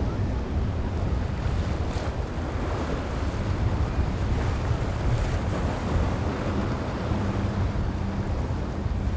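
Strong wind rumbling on the microphone over waves, with the faint drone of a speeding twin-outboard powerboat passing.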